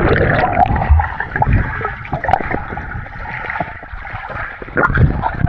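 Swimming-pool water sloshing and splashing unevenly, with small splashes throughout.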